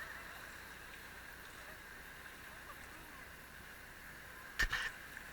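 Steady rushing of river water, with a short loud burst of noise near the end.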